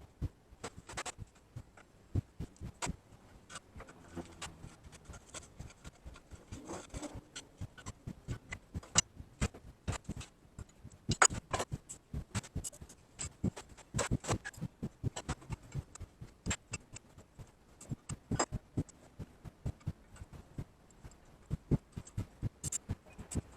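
Irregular clicks, taps and knocks of metal bench vise parts being handled and set down during disassembly, a few of them sharper and louder.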